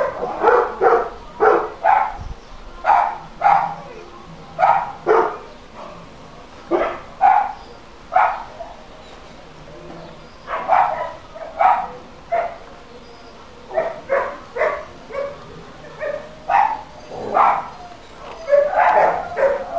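A dog barking over and over in short barks, often in quick pairs, with a lull of about two seconds partway through before it starts again.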